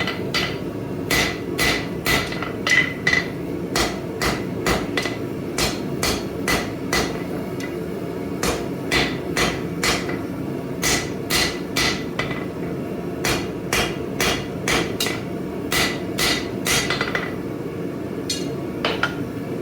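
Blacksmith's hammer striking hot 1-inch flat bar on an anvil while drawing out a taper: a long run of blows, about two a second with a few short pauses, many with a brief metallic ring, over a steady low rushing noise.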